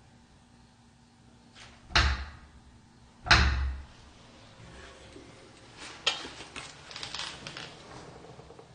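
A door banging twice against its metal frame, about a second and a half apart, the second bang heavier and ringing on briefly. A few seconds of lighter rattling and knocks follow near the end.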